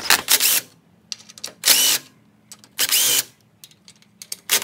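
Cordless drill with a 1/4-inch socket spinning out the mounting bolts of a lawn-tractor engine's charging stator, in short bursts of whining motor about a second apart: three, with a fourth starting at the end.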